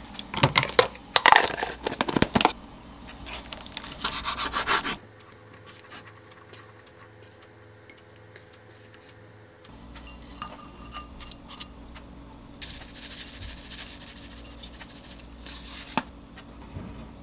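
Kitchen handling sounds: a plastic food container and its lid knocking and clicking against a wooden cutting board for the first five seconds. After that, quieter scattered taps and light rustling as chopsticks lay salmon into a ceramic bowl, with one sharp tick near the end.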